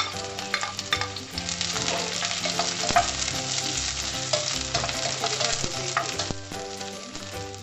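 Sliced onion, garlic, ginger and chillies sizzling in hot oil in a small stainless steel pan, being sautéed as the base of the sauce, while a slotted spatula stirs them and clicks and scrapes against the metal. The sizzle grows louder about a second in.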